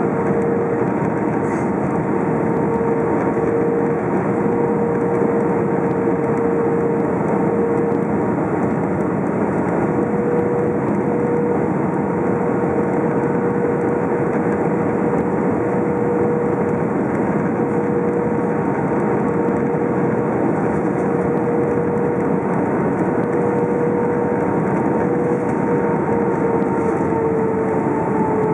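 Cabin noise of an Airbus A319 on final approach to landing: a steady rush of jet engines and airflow with a constant drone, whose pitch drops slightly near the end.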